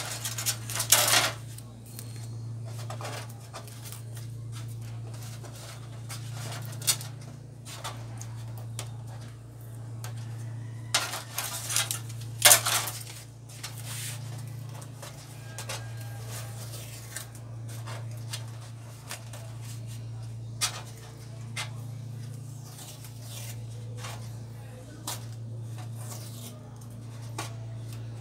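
Scattered metallic clinks and knocks as LED backlight strips are handled and laid on a TV's sheet-metal back panel, loudest about a second in and again around eleven to thirteen seconds in, over a steady low hum.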